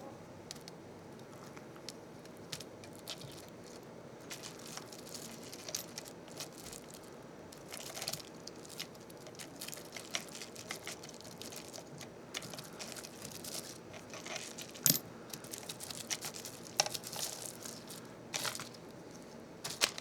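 Small plastic parts and packaging being handled: crinkling and rustling with scattered sharp clicks, the loudest about three-quarters of the way through.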